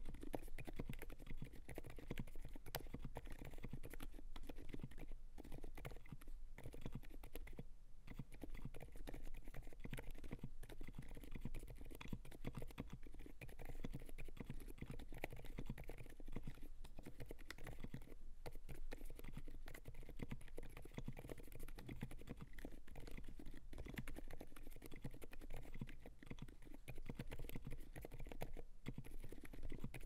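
Steady, fast typing on a Gopolar GG86 mechanical keyboard with a polycarbonate plate, lubed and filmed silent Alpaca linear switches and OSA keycaps: a dense run of soft keystrokes, thinning briefly a couple of times.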